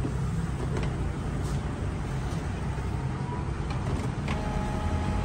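Steady low rumble of road traffic with a few faint clicks; about four seconds in, a steady whine of several tones sets in.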